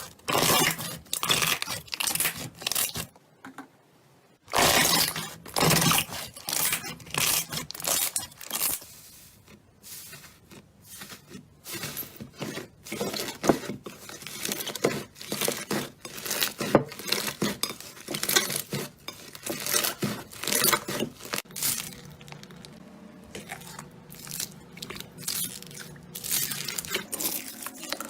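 Slime being squeezed and stretched by hand: irregular bursts of crackling and popping, with a brief pause about three seconds in, then quicker, softer crackles.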